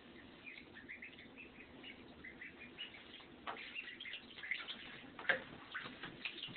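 Pekin ducklings peeping in many short, high chirps as they swim, with a few light splashes and knocks of water in a bathtub, the sharpest about three and a half and five seconds in.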